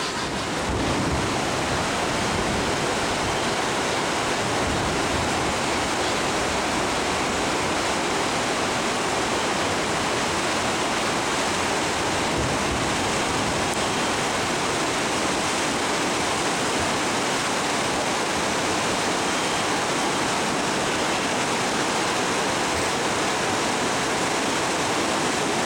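Steady rushing of the Animas River's fast-flowing water.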